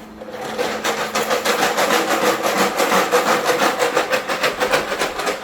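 Fast, even rasping or scraping, about six strokes a second, running steadily.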